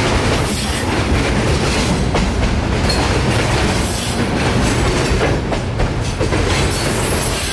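Freight train of refrigerated boxcars rolling past on a bridge: a steady loud rumble of steel wheels on rail, with the clickety-clack of the wheels over the rail joints.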